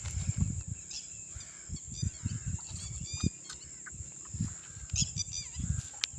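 Short chirping bird calls in several brief clusters, over a steady high insect drone and irregular low rumbling thumps.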